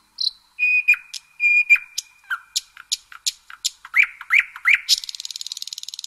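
Nightingale singing: a few long, pure whistled notes, then a string of sharp clicking notes and rising chirps, breaking into a fast rattling trill near the end.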